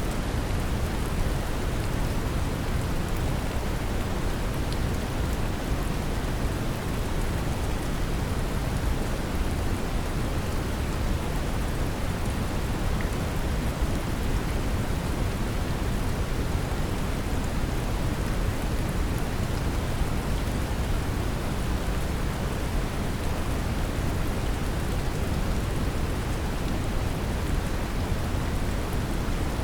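Steady brown noise blended with gentle rain: an even, deep rushing hiss heaviest in the low end, with faint scattered raindrop ticks on top.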